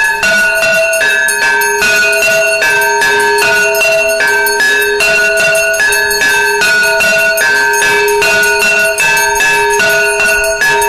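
Temple bells ringing continuously for arati, a rapid, dense clanging with two ringing pitches alternating about twice a second.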